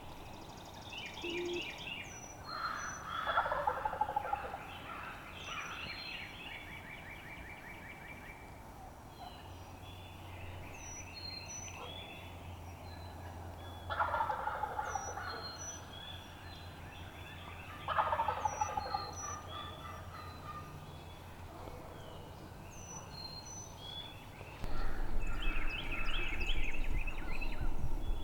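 Wild turkey gobbling three times: a loud rattling call that falls in pitch, heard about 3 seconds in, in the middle and again four seconds later, while small songbirds chirp throughout. A louder low rumble starts near the end.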